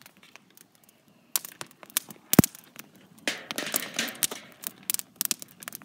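Open fire crackling and popping in scattered sharp snaps, with one loud pop about two and a half seconds in and a short rustle just after.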